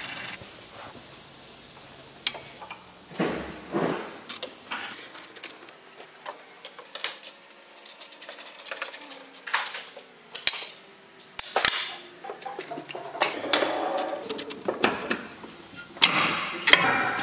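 Metal hand tools clinking, knocking and scraping against steel suspension parts during a ball-joint replacement, in irregular sharp strikes, the loudest near the end.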